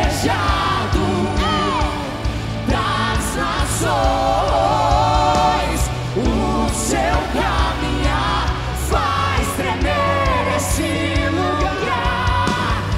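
Live worship band playing a song with singing voices over a steady bass and drums, with cymbal hits every second or two.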